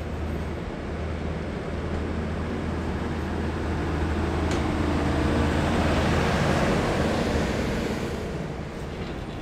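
Heritage passenger carriages rolling slowly past, wheels running on the rails with a steady low hum. The noise swells about halfway through and eases near the end, with a single sharp click about four and a half seconds in.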